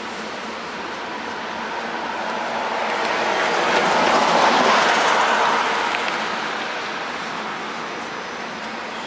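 A vehicle passing close by: a rushing noise that swells to a peak about halfway through and then fades away, over steady traffic noise.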